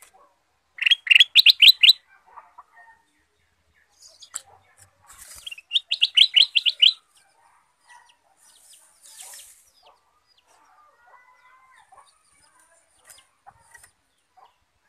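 Ruby-throated bulbul (kutilang emas) singing: two quick runs of about eight clear, ringing notes each, about five seconds apart, with soft wing flutters between.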